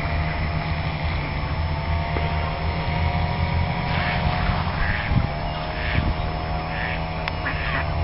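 Steady drone of a distant engine over a low rumble; from about halfway, waterfowl calling in a string of short calls, roughly one a second.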